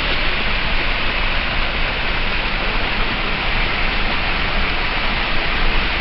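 Waterfall and fast white-water stream rushing steadily over rocks: a loud, even hiss of falling water.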